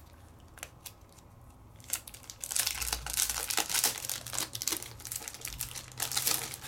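A stamp set's packaging crinkling and rustling as it is handled and pulled open. A few soft clicks come first, then steady crackling from about two and a half seconds in.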